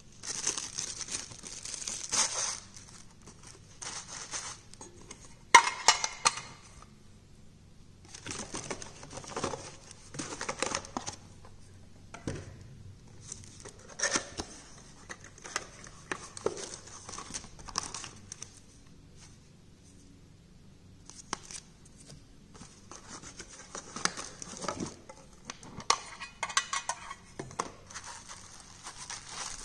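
Unboxing handling noise: a thin plastic bag crinkling and cardboard watch boxes and their plastic inner cases being handled, in irregular bursts of rustling with taps and knocks. The loudest is a sharp click about five and a half seconds in.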